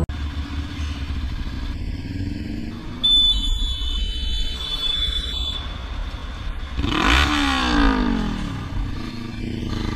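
Road and engine noise from a car on a highway, cut at about three seconds to a motorcycle's engine with wind noise. About seven seconds in comes a loud rush of noise with an engine note falling and then rising.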